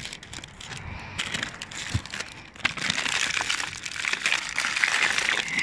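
Plastic film and bags crinkling and rustling, with small crackles and squishes, as a gloved hand rummages through rotting fruit in a bin. The crinkling grows busier and louder about halfway through.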